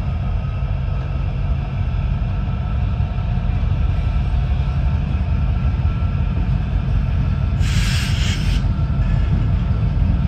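Freight train cars rolling past with a steady low rumble. A brief hiss cuts in about eight seconds in and lasts about a second.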